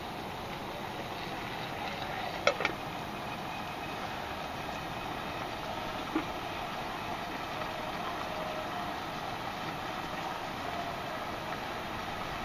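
Wood campfire burning with a steady rushing noise, broken by two sharp crackling pops about two and a half seconds in and a smaller pop around six seconds.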